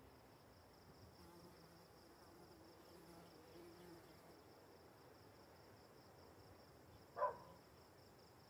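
Faint, steady chirring of crickets. About seven seconds in, a single short louder sound cuts through once.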